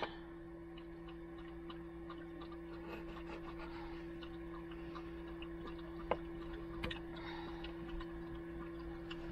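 Knife slicing a tomato on a plate: faint scattered clicks and soft taps, with a sharper tick about six seconds in, over a steady low hum.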